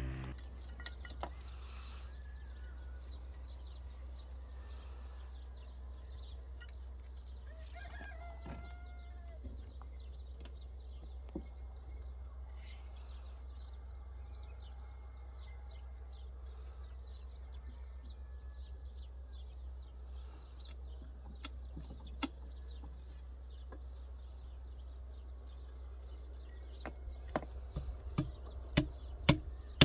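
Rural outdoor ambience with a steady low rumble, small birds chirping and a rooster crowing once about eight seconds in. Near the end comes a quick run of sharp knocks as a small metal window frame is tapped into its opening in a concrete wall.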